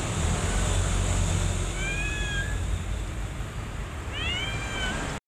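Young kittens mewing: two short, high-pitched mews, one about two seconds in and another near the end, over a steady low rumble.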